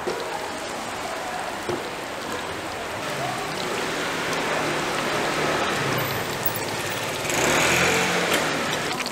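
Hot oil sizzling steadily in a deep fryer as battered vegetable fritters fry, growing louder for about a second around seven seconds in.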